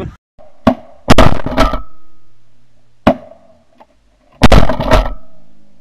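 Shotgun blasts heard close up from the gun: a quick volley of about three shots a second in, a single shot about three seconds in, and another volley about four and a half seconds in, each trailing off.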